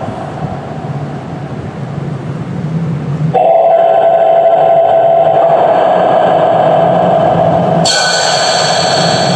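Afterlight Box ghost-box software playing through a laptop: a steady hissing drone that switches abruptly to a louder, held droning tone about three seconds in, with a hiss added near the end.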